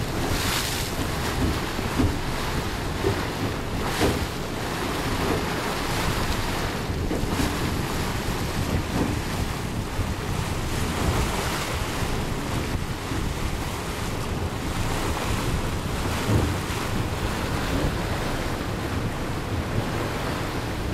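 Wind buffeting the microphone on the deck of a ferry under way, over the steady wash of water along the hull. A few brief stronger gusts break through.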